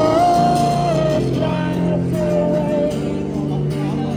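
Music: a sung melody over guitar accompaniment.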